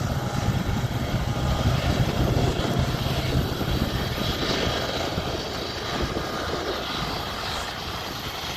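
Several BNSF diesel-electric locomotives pulling a heavy freight train, a steady low engine drone that slowly fades as the lead units draw away.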